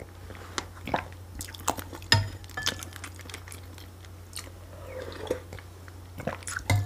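A person chewing food close to a condenser microphone, with many short, irregular wet mouth clicks.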